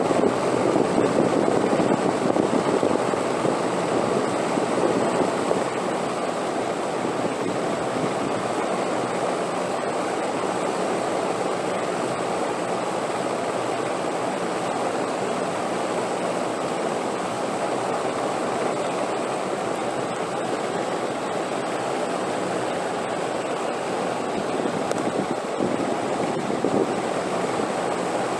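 Steady rushing wind, an unbroken noise with no gusts or breaks; it eases slightly a few seconds in and swells briefly near the end.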